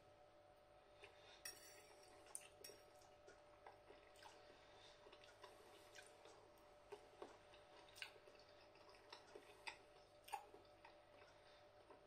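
Near silence with faint, scattered clicks and smacks of a person chewing a mouthful of noodles, with the odd light click of a metal fork; the most distinct click comes about ten seconds in.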